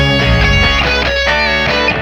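Rock song with guitar and no singing, the chord changing about a second in.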